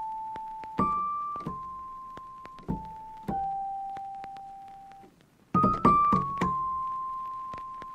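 Background music: a slow piano melody played one note at a time, each note struck and left to ring and fade, with a few quicker notes about two thirds of the way through.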